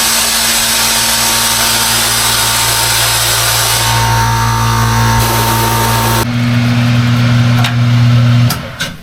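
Steady shop-machine noise, a loud hiss over a low electric hum. The hiss cuts off about six seconds in, and the hum runs on for another couple of seconds before stopping.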